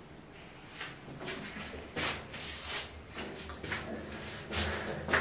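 Irregular rustling and shuffling from someone moving about with a handheld camera in a small tiled bathroom, with a sharp click near the end.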